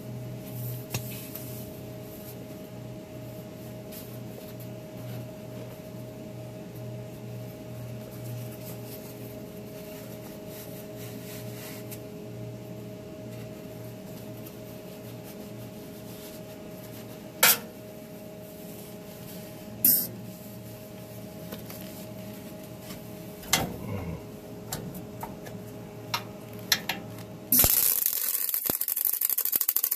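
A steady hum with a few sharp clicks and knocks. Then, near the end, a MIG wire-feed welder's arc strikes with a loud, continuous crackle while it welds a steel bracket to the bus frame.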